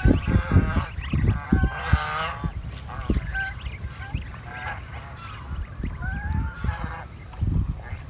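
White domestic geese honking: a series of short calls, with one longer rising call about six seconds in.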